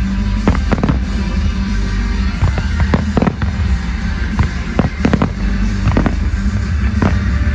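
Fireworks going off in a rapid irregular series of bangs and pops, several a second, over loud music playing through a public sound system.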